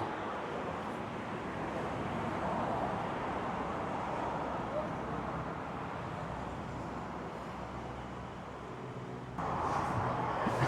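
Road traffic: a steady hiss and rumble of passing vehicles, stepping up suddenly to a louder level near the end.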